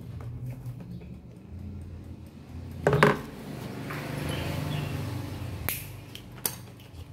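Knocks and clatter of the air fryer's parts being handled during repair: a loud knock about three seconds in, a rustling scrape after it, and two sharp clicks near the end.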